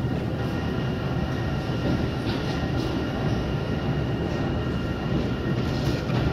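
1995 KONE inclined traction elevator car travelling along its incline: a steady rumble with a constant hum.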